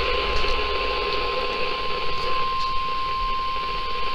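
NOAA Weather Radio's 1050 Hz warning alarm tone: a single steady, unbroken high tone over radio hiss, the signal that a warning message is about to be read.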